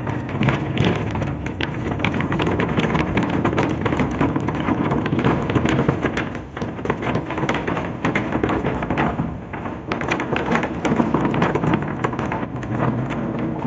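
Wind buffeting a moving microphone: a loud, continuous rumble broken by irregular crackles.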